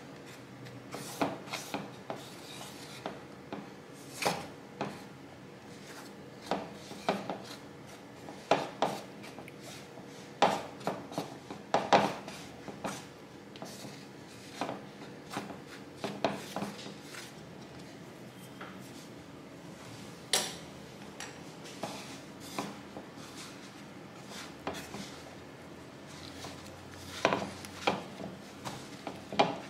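A wooden chopstick stirring flour into a wet green vegetable mixture in a wooden bowl, scraping and knocking against the bowl in irregular strokes with pauses between them.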